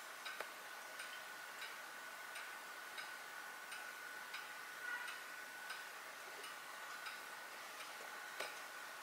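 Faint, even ticking, about three ticks every two seconds, over a thin, steady high-pitched tone.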